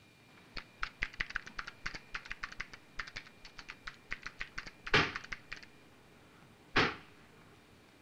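Typing on a desktop computer keyboard: quick, uneven key clicks for about five seconds. Then two loud thumps about two seconds apart, the first near the end of the typing.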